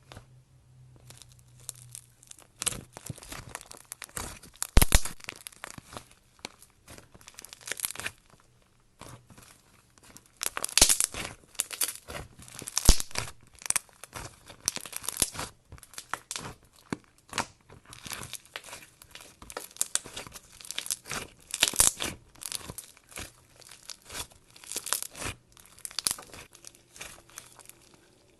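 Clay slime being kneaded and stretched by hand, with irregular crackling and popping as it is pulled apart and pressed together.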